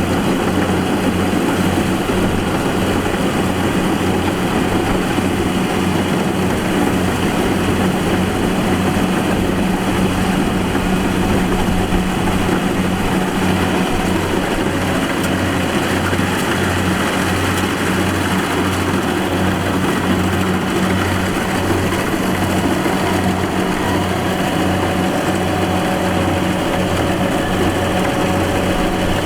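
Combine harvester's diesel engine and machinery running steadily, with a regular low throb.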